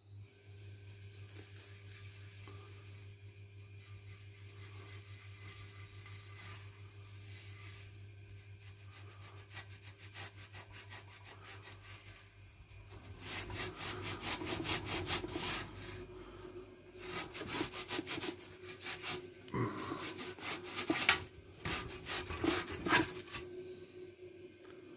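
Hand rubbing and scrubbing the pitted, rusty metal of a Raleigh Chopper bicycle to clean it up. The strokes are faint at first over a steady low hum, then a run of fast back-and-forth scrubbing strokes starts about halfway through.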